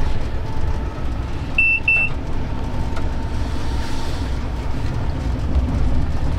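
Diesel locomotive running, heard from inside the cab as it rolls slowly forward: a steady low engine rumble. Two short high beeps sound in quick succession about one and a half seconds in.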